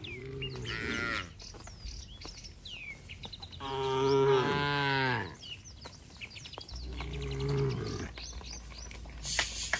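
Cattle mooing three times, the middle call the longest and loudest, dropping in pitch at its end. Birds chirp between the calls.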